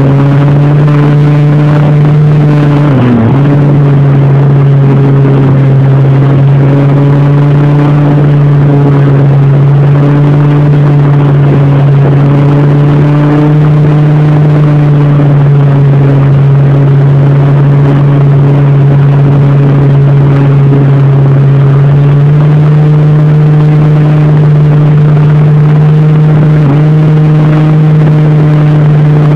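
Brushless electric motor and propeller of an RC model Cessna 182 running at steady cruise throttle, heard loud and close from a phone mounted on the airframe. The pitch dips briefly about three seconds in and again near the end, and steps up slightly a little past twenty seconds in.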